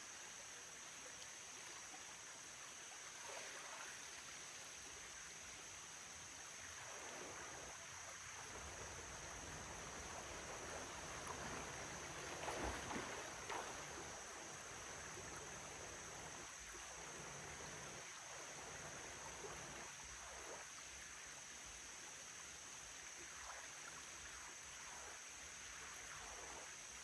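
Faint creek water running over rocks, a soft steady rush with a thin high hiss above it. A few brief, slightly louder knocks or splashes come about halfway through.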